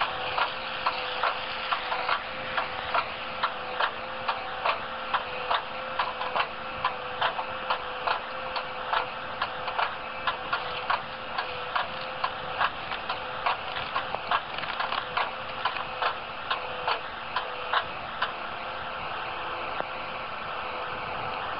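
A tractor-mounted hydraulic branch-cutting head, a toothed guillotine cutter bar on a boom, working, with a steady machine and hydraulic hum. Over the hum comes a rapid, regular clicking of about two to three clicks a second, which stops about 18 seconds in and leaves only the steady running sound.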